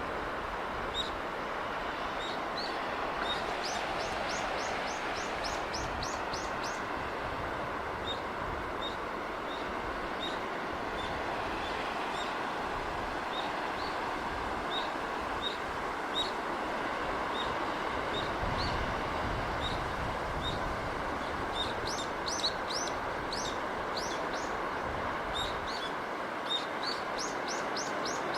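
Steady wash of sea wind and surf, with small birds chirping over it: single chirps about once a second and three quick runs of rapid chirps.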